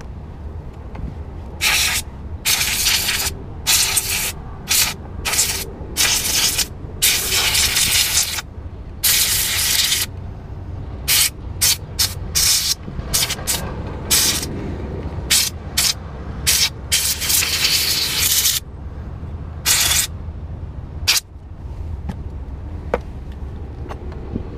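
Compressed-air blow gun fired in many short, irregular bursts of loud hissing, blowing dust out of a clogged Webasto Air Top 2000 ST diesel air heater. A steady low rumble runs underneath, and the bursts stop near the end.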